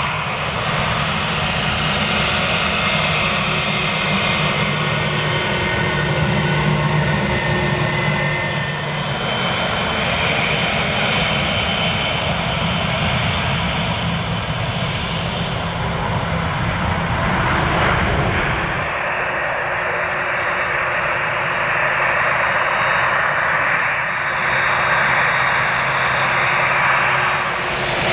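Jet airliner engines, first an Airbus A320-family jet and then a Boeing 787, running steadily with a low rumble under a whistling whine. About two-thirds in, the sound changes abruptly: the rumble drops away and a higher steady whine remains.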